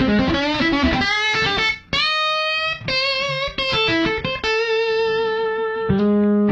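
Electric guitar played through an Electro-Harmonix EHXtortion JFET overdrive pedal: a blues-rock lead phrase with notes bent up and down in pitch, then several held single notes, and a fuller, lower note or chord struck about six seconds in.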